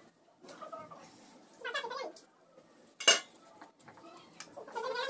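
A brass ladle clinking against a brass pot as food is scooped out and served, with one sharp clink about three seconds in. Fainter calls are heard in the background.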